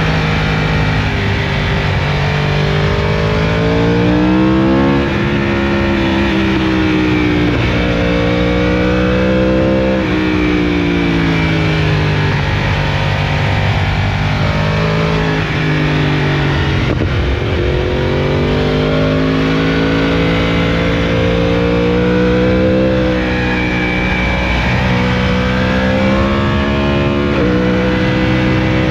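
Yamaha R1 crossplane inline-four running through an Akrapovic exhaust while riding. The engine note climbs under throttle and drops abruptly several times at gear changes, with stretches of slowing revs between.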